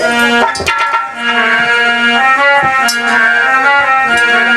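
Harmonium playing a melody over a held drone note, with a few drum strokes.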